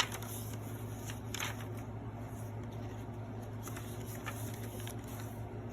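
Soft rustling and handling of paper journal pages, with a few light taps, over a steady low hum.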